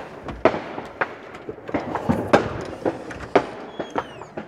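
Firecrackers popping in a run of sharp cracks, about two a second, which stop near the end.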